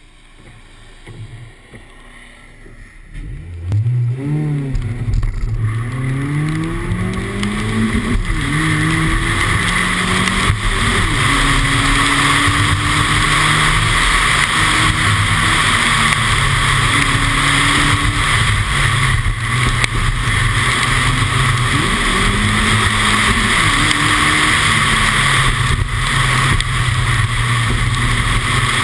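Opel Kadett engine heard from inside the car. It pulls away a few seconds in and climbs in pitch through several gear changes, then runs hard with its pitch rising and dipping, under a steady hiss of tyres on wet tarmac.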